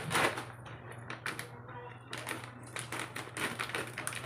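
Scissors snipping open a clear plastic bag of dry cat food, the plastic crinkling and rustling in a run of short, irregular snips.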